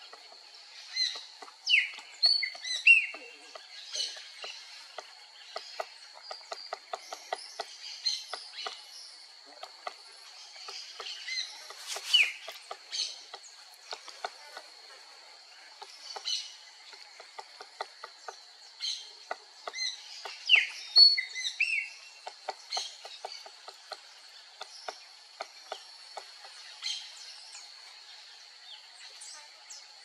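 Crimson-crested woodpecker pecking and chipping at bark, heard as runs of quick, light taps. Short, sharp falling chirps from birds are the loudest sounds, over a steady high-pitched whine.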